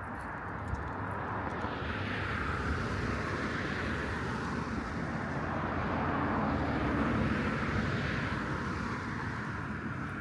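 A passing vehicle, its noise swelling slowly to a peak about seven seconds in and then fading.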